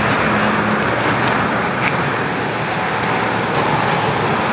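Steady city traffic noise, an even wash of passing cars with a faint engine hum in the first second.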